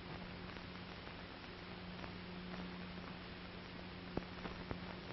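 Steady hiss and a low hum with scattered faint crackling clicks, a sharper click about four seconds in: the background noise of a 1930s optical film soundtrack.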